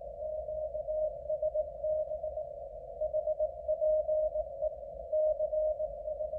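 Morse code (CW) on a shortwave amateur radio transceiver: a single tone near 600 Hz keyed on and off in dots and dashes, heard through a narrow CW filter with a constant band of hiss around it.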